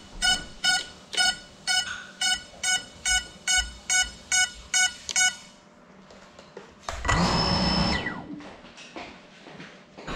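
Electronic beeper on an FPV quadcopter sending a steady run of short beeps, about two a second, which stop about five seconds in. About seven seconds in, the drone's motors whir up loudly for about a second, then stop and fade away.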